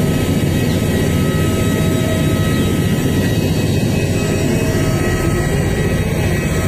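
Jet airliner noise: a steady loud rush with thin, steady high whining tones over it.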